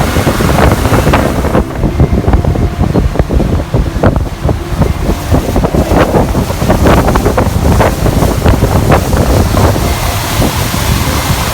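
Strong wind buffeting the microphone over the rushing and splashing of sea water, loud and uneven throughout.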